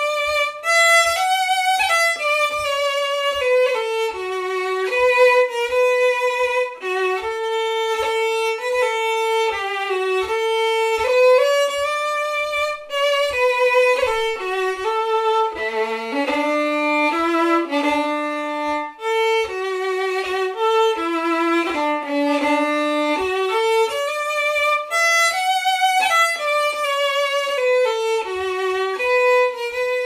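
Solo fiddle playing a Scottish traditional tune slowly, one clear melodic line of separately bowed notes, with faint low taps keeping a steady beat.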